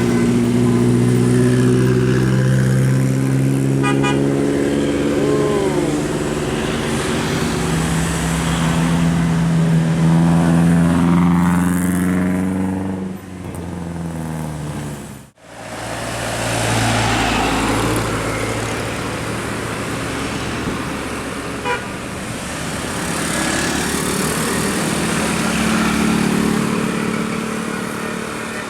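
Telolet bus horn, a multi-tone air horn, playing a tune of held notes that step from pitch to pitch, over traffic noise. The sound breaks off abruptly about halfway through, then more horn notes and traffic follow.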